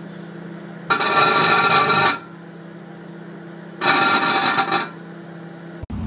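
Panasonic microwave oven running with a steady low hum, broken twice by loud buzzing bursts of about a second each as the grape halves inside spark into plasma.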